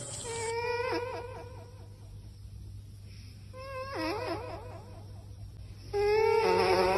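Three high-pitched vocal cries with a strongly quavering, wobbling pitch, each about a second long and a few seconds apart, the last one the loudest. A low steady hum runs underneath.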